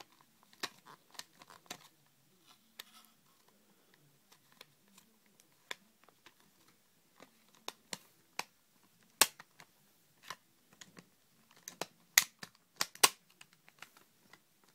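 Plastic airsoft rifle parts clicking and knocking as the trigger assembly is worked to clip into the upper plastic housing, in irregular sharp clicks with a few louder snaps in the second half.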